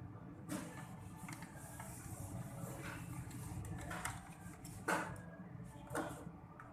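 Small metal screws and a screwdriver clicking and tapping against a laptop's bottom panel as the case screws are taken out, about five sharp clicks spread through, the loudest a little before the end.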